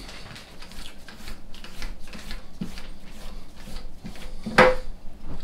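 A heavy three-jaw lathe chuck being handled by hand: irregular metal scrapes, rubs and small knocks, with a louder knock near the end.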